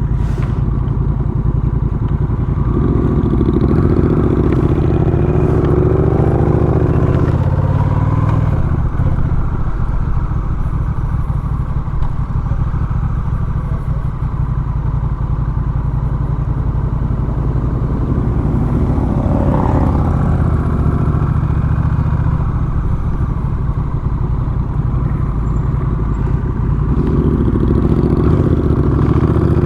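Motorcycle engine running steadily under way, its pitch rising as it accelerates a few seconds in and again near the end.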